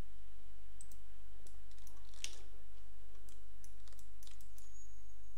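Scattered clicks of a computer mouse and keyboard as Blender is operated, a dozen or so short taps at an uneven pace, over a steady low hum.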